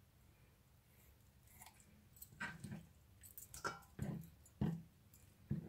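Raw chicken being cut with kitchen scissors and handled on a plastic cutting board: after a quiet start, a run of about six short wet slaps and clicks, roughly half a second apart, in the second half.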